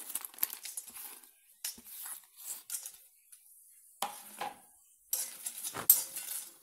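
Dry cinnamon bark pieces rattling and scraping against a metal wok as they are handled. There are scattered crackly clicks and clinks, and a sharper knock near the end.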